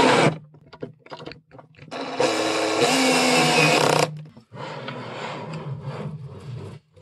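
Makita 14.4 V cordless drill-driver running in short bursts as it drives screws into an end-stop bracket on a wooden frame. A run ends just after the start, a louder two-second run follows about two seconds in, and a quieter run comes near the end.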